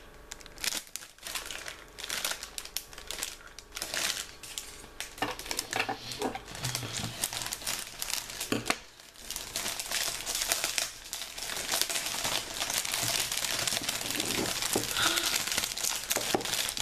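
Shiny metallic gift wrap being crinkled and torn open by hand, an irregular crackling rustle throughout.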